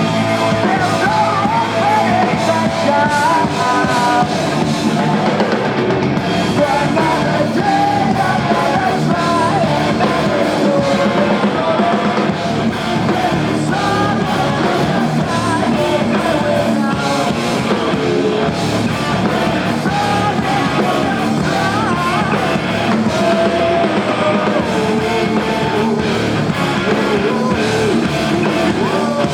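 Live rock band playing a song: sung vocals over electric guitars, bass and drum kit, loud and steady throughout.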